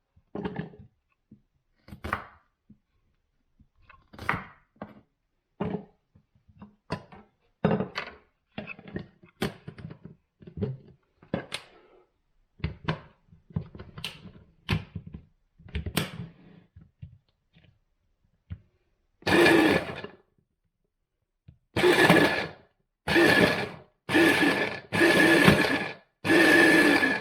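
A knife roughly chopping on a chopping board in irregular strikes, then, from about two-thirds of the way in, an electric food chopper run in about five short pulses, each a second or so long with a steady whine, breaking the chopped shallots, lemongrass, ginger and garlic down to a coarse paste.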